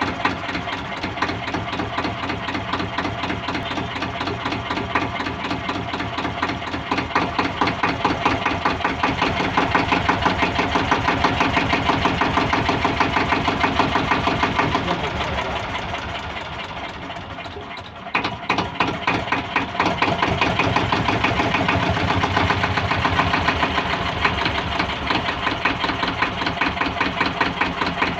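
Yanmar two-cylinder diesel engine running with a steady, fast knocking beat. It slows and quietens from about halfway through, then picks up again sharply about 18 seconds in.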